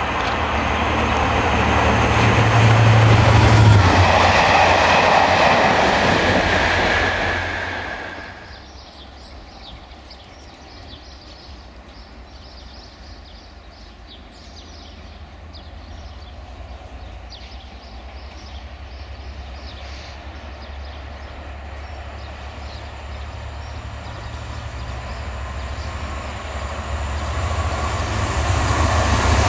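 Class 67 diesel locomotive, its EMD two-stroke V12 engine working as it hauls coaches past with a deep steady drone and rumble, loudest a few seconds in. About eight seconds in the sound drops away abruptly, and another Class 67-hauled train is heard approaching from a distance, growing steadily louder near the end.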